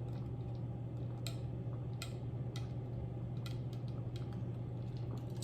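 A person drinking between bites, making soft, scattered swallowing and mouth clicks over a steady low electrical hum.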